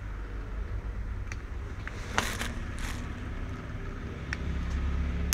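Electric mosquito-swatter racket zapping mosquitoes on its charged grid: sharp crackling snaps about two seconds in, again a moment later, and once more at the very end, over a steady low hum.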